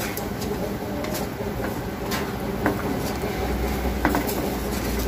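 Wooden spatula stirring and scraping a wet spice paste around a metal kadai, a few short scrapes and taps over a steady low hum.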